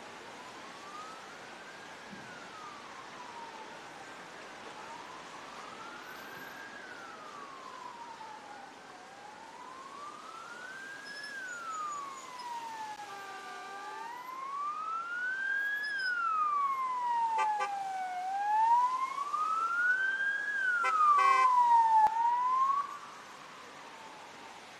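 Emergency vehicle siren wailing, rising and falling slowly about every four and a half seconds. It grows louder over the second half and cuts off suddenly near the end.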